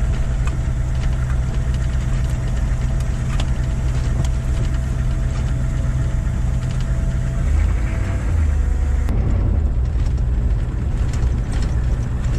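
Heavy military vehicle engine running steadily with a deep rumble. Its steady hum drops out about seven and a half seconds in, and the rumble carries on.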